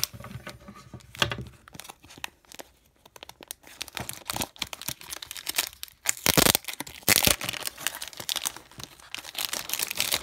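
Plastic wrapping on a pack of card sleeves being torn open and crinkled by hand, in irregular crackles, loudest a little past the middle.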